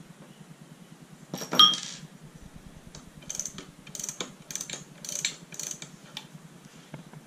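Metal parts of a tricycle tilting kit being handled: a sharp metallic clank with a short ring about a second and a half in, then a series of lighter clicks and rattles.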